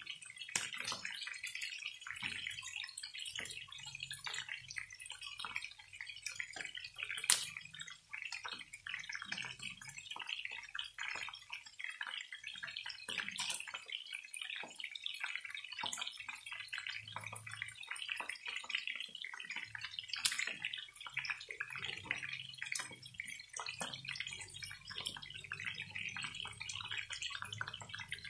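Chicken pieces shallow-frying in hot oil in a pan, sizzling with a steady dense crackle and small spitting pops, one sharp pop about seven seconds in.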